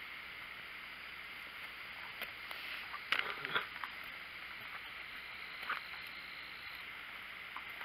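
Brief rustles of footsteps and brushing through weeds on a woodland trail, once about three seconds in and again near six seconds, over a steady high hiss.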